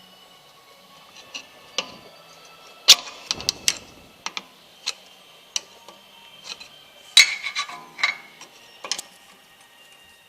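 Irregular metallic clicks and clacks of a flathead screwdriver working at a Mustang rear parking brake cable and its retaining clip, prying it loose. The loudest knocks come about three seconds in and again around seven seconds in.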